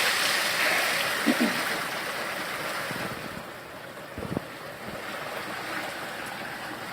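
Heavy rain pouring down, a steady hiss that grows softer about three seconds in, with a brief low thump a little after four seconds.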